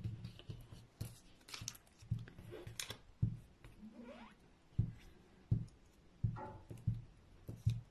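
Hands gluing torn paper pieces onto a sheet with a glue stick: paper rustling and crackling, and a series of irregular soft knocks as the glue stick and pieces are set down and pressed onto the table, with a brief squeak about four seconds in.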